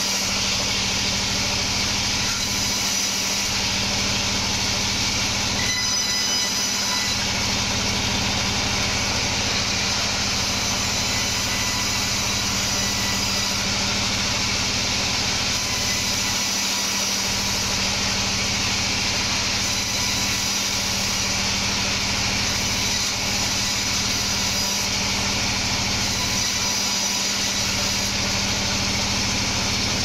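Band sawmill running steadily, its vertical band-saw blade ripping boards of wadang wood as they are fed through: a constant machine hum under the hiss and rasp of the cut.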